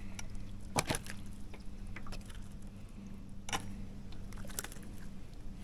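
Crappie being unhooked by hand: a few small clicks and wet handling sounds over a faint, steady low hum.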